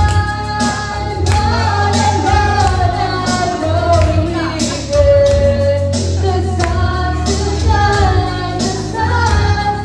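Woman singing into a handheld microphone over a backing track with a bass line and a steady beat. She holds one long note about five seconds in.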